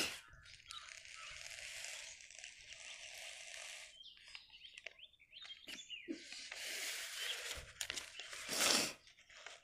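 Paper of a printed exam booklet rustling as it is handled and its pages turned, with a few light crinkles and one louder rustle near the end.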